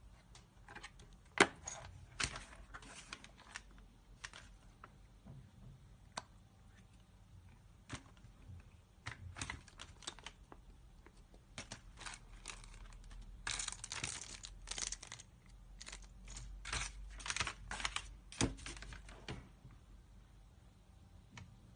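Handling of a holographic red-dot sight and its packaging: irregular small clicks and knocks with stretches of crinkling, busiest in the second half, with one sharp click about a second and a half in.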